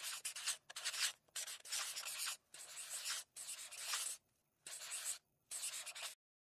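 Pencil sketching on paper: a series of about eight quick scratchy strokes, each under a second long, stopping about six seconds in.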